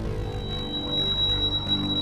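Background music: slow ambient electronic piece of sustained synthesizer chords, changing chord right at the start, with a thin high held tone entering shortly after.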